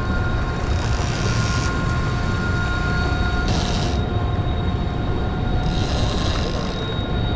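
Large sportfishing yacht's diesel engines running, a steady low rumble with the rush of propwash, and a few thin steady whining tones above it.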